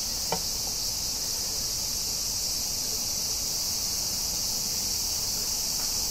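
Steady high-pitched chirring of insects, with a single faint click just after the start.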